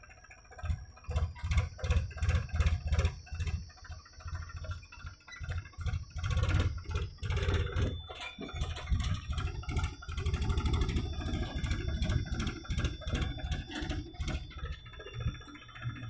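JCB 3DX backhoe loader's diesel engine working under load as the bucket digs, a pulsing low rumble with scattered clicks and knocks.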